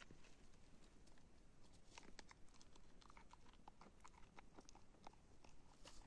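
Goat kid biting and chewing green plants: faint, irregular crunching clicks.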